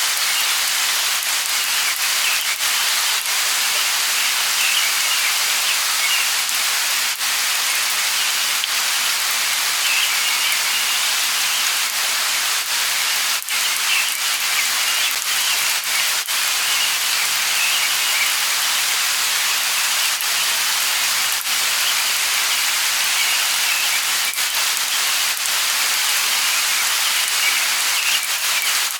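Steady light rain falling, an even hiss with the patter of individual drops. Faint bird chirps come in every few seconds over the rain.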